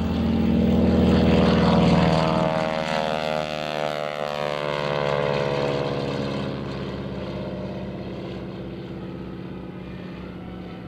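Val dive-bomber replica, a modified BT-13 with a Pratt & Whitney R-985 radial engine, flying past at high power. Its engine pitch falls as it goes by, and it fades away over the following seconds.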